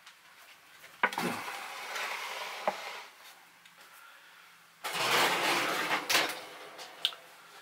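Metal sheet pan clattering and scraping as it is set down and shifted on a wooden cutting board, with sharp knocks. The noise comes in two spells, about a second in and about five seconds in.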